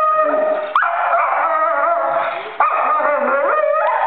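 A dog making long, wavering, high yowls at its own reflection in a mirror, taking it for another dog; a new yowl starts sharply about a second in and again halfway through, with hardly a pause between them.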